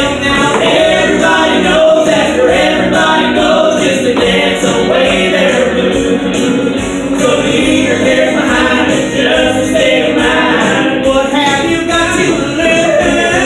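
Upbeat honky-tonk style song with several voices singing together over a steady beat.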